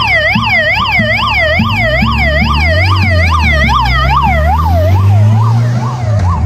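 Police motorcycle siren in a fast yelp, sweeping up and down about three times a second, passing close and fading away about five seconds in. A low engine rumble swells as the motorcycle goes by.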